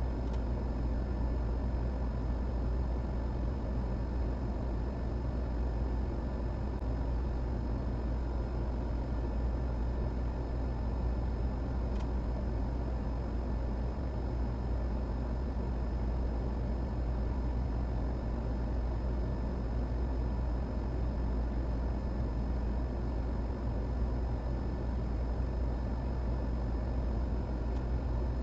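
Steady low electrical hum under an even hiss of air noise, with a few faint steady tones above it.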